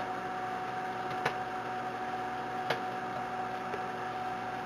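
Microwave oven running with a steady hum while a bag of microwave popcorn pops inside: four sharp, well-spaced pops, the last kernels popping near the end of cooking.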